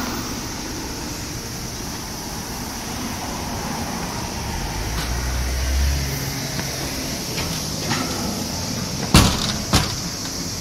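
Steady outdoor street noise with a low vehicle rumble around the middle. Near the end come two sharp knocks, half a second apart, from a glass entrance door being handled and pulled open.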